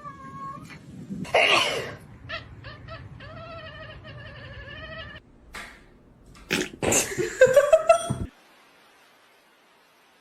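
Domestic cat vocalizing: a short meow, then a long wavering yowl about three seconds in, and a louder jumble of noise and rising cries around seven seconds in before the sound drops away.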